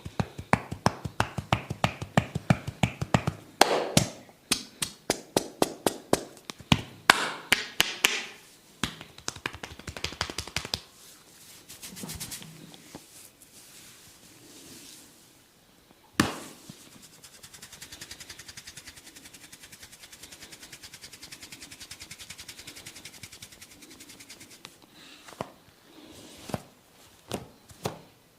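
Hands striking the body in a rapid percussive massage rhythm, several sharp slaps a second for about ten seconds, then a single loud smack, followed by quieter fast scratching strokes and a few more slaps near the end.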